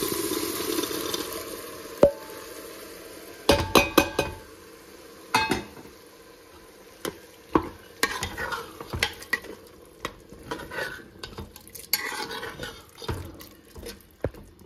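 A spoon stirring boiled chickpeas into a pan of fried masala gravy, scraping the pan, with a light sizzle. The spoon knocks sharply against the pan several times around four seconds in.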